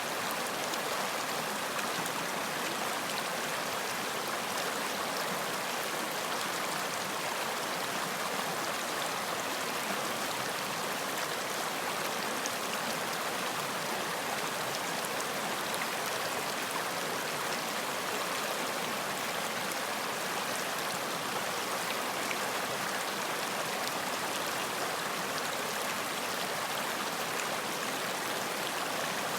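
Running water of a stream, a steady, even rush and splash with no change throughout.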